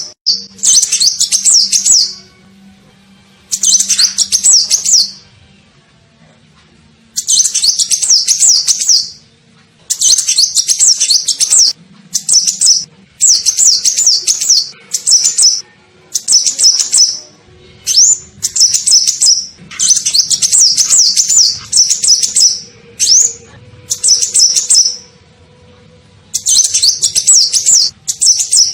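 Sunbird song played as a bird-trapping lure call: repeated bursts of rapid, high twittering, each a second or two long, with short pauses between them.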